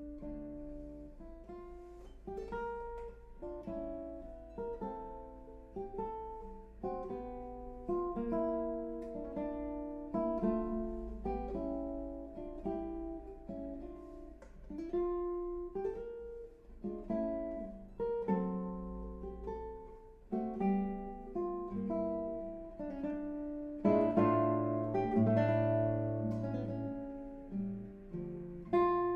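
Solo classical guitar: a flowing run of plucked notes and chords, with louder, fuller chords and deep bass notes near the end.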